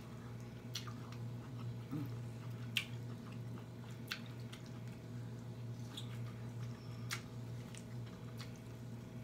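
Close-up chewing and mouth smacking while eating seafood, with a sharp wet click every second or two, over a steady low hum.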